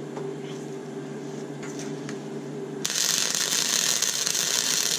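Wire-feed welder humming steadily, then about three seconds in the arc strikes and crackles loudly and evenly until the end.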